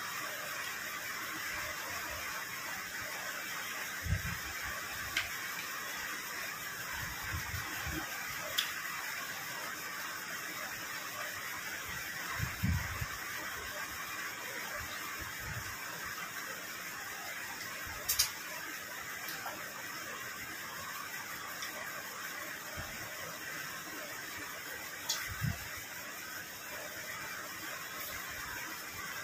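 A steady background hiss. Over it come a few soft, scattered knocks and clicks from hands and fingers working rice and fish on plastic plates.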